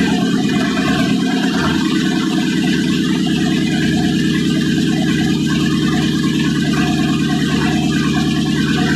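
V8 diesel engine idling steadily with its rocker covers off, a fast even firing rhythm.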